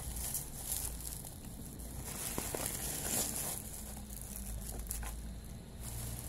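Plastic bubble wrap crinkling in irregular bursts as hands unwrap a bottle from it.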